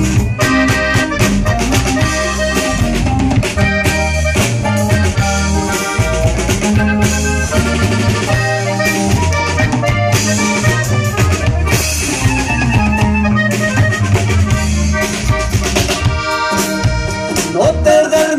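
Live band music: a Hohner button accordion playing the lead melody over a drum kit keeping the beat.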